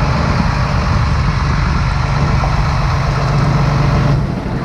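A large diesel engine idling steadily, its low hum easing off about four seconds in.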